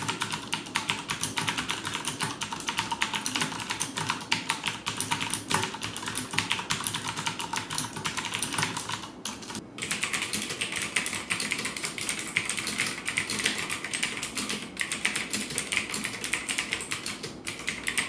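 Fast, continuous typing on a mechanical keyboard with clicky blue switches: first the Magicforce Smart 82 Typewriter with Cherry MX Blue switches and round typewriter-style keycaps, then, after a short break a little past halfway, a Magicforce 82 with Gateron Blue switches.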